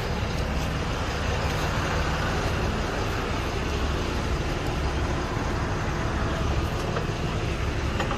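Truck engine idling steadily, a low even hum.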